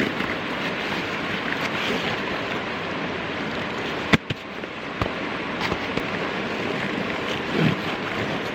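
Steady rush of flowing river water, with a sharp click about four seconds in and a smaller one about a second later.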